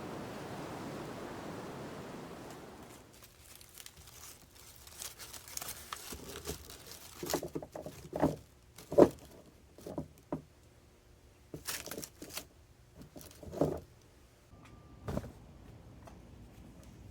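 A steady rush of noise for about three seconds, then small handling sounds: a run of light knocks, taps and crinkling as objects are handled, with the sharpest knock about nine seconds in.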